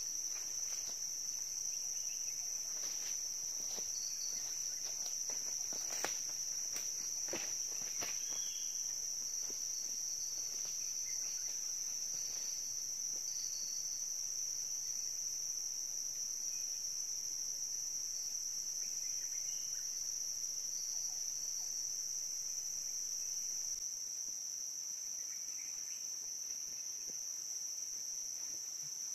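Steady high-pitched chorus of tropical forest insects buzzing without a break. A few light knocks and rustles come in the first eight seconds or so.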